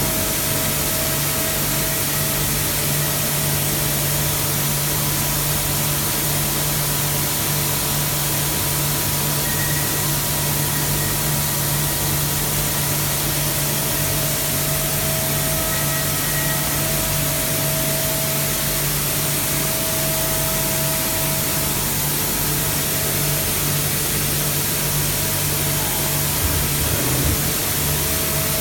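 Mazak 5-axis CNC machining center running steadily. It gives an even hiss over a low hum, with a few steady higher tones.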